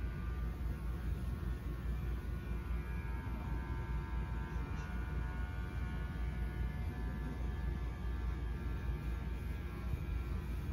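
Steady low electric hum with a faint higher whine above it, unchanging throughout.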